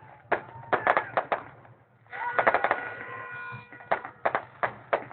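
Fireworks going off in a string of sharp, irregular bangs, with a rapid crackling volley about two seconds in and a steady high tone sounding alongside it.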